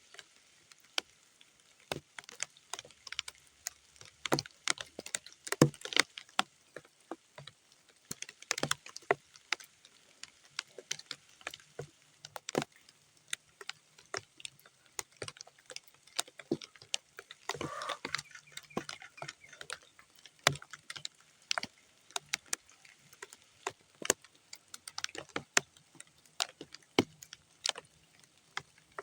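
Rain dripping onto muddy ground: scattered, irregular drops tapping and plopping one by one, with a longer, louder splash about eighteen seconds in.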